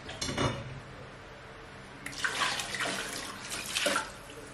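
Water poured from a plastic jug into a pan of rice simmering in broth, splashing for about two seconds near the end, after a short knock about half a second in.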